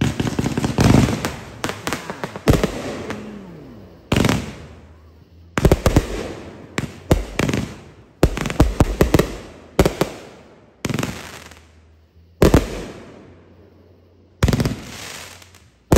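Fireworks going off: a dozen or more loud bangs from bursting shells at uneven intervals, some in quick clusters, each fading with a crackling tail.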